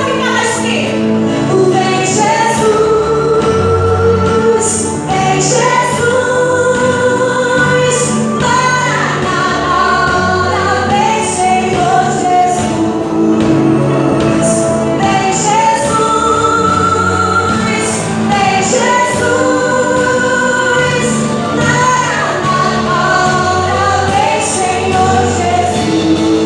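Gospel worship song performed by a live band: a woman's lead vocal with sung backing over keyboard, guitars, bass guitar and drums.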